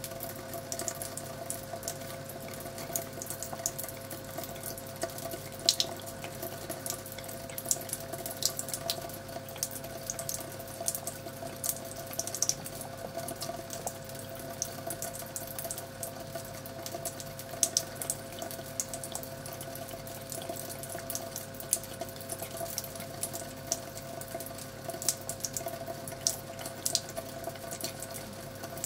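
A cat lapping from a thin stream of running tap water: quick irregular wet clicks over the steady splash of the stream, which carries a constant hum.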